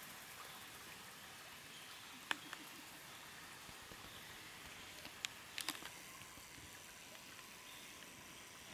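Shallow forest brook trickling faintly over stones. A few short sharp clicks stand out, one about two seconds in and two more a little after five seconds.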